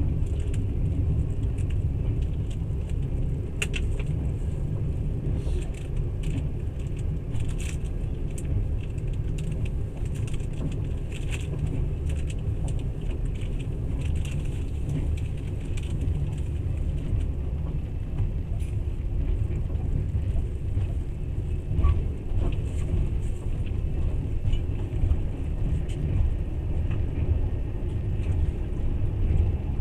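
Passenger train running along the line, heard on board: a steady low rumble of the wheels on the rails with scattered clicks and rattles.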